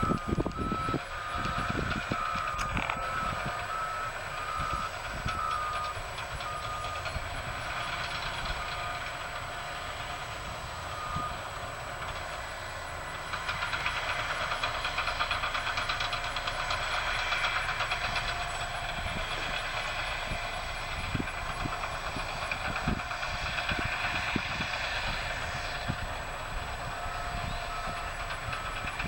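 Heavy construction machinery running with a reversing alarm beeping about once a second. The beeping stops about 11 seconds in and starts again near the end.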